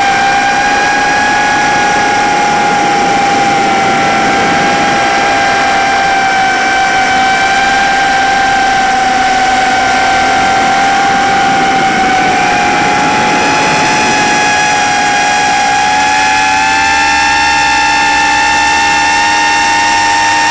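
Four-inch FPV quadcopter's brushless motors (1408 size, 2850KV front and 3000KV rear) and propellers whining in flight, a steady high whine of several close tones. The pitch climbs a little about two-thirds of the way through as the throttle changes.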